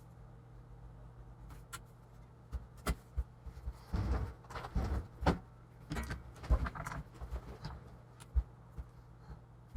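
Laptop keyboard and top case being handled on a workbench: scattered clicks and knocks of plastic and metal parts, thickest in the middle, over a steady low hum.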